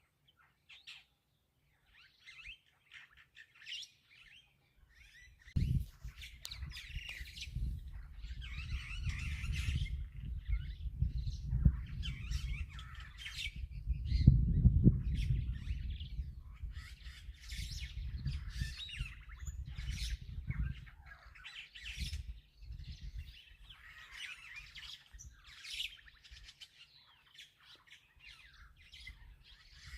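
Wild birds chirping and squawking in a steady chorus. A low rumble cuts in about six seconds in, swells near the middle and dies away about two-thirds through.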